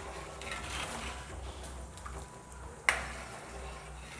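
Steel ladle stirring jackfruit payasam in a bronze uruli, with light scraping and one sharp knock of the ladle on the pot about three seconds in.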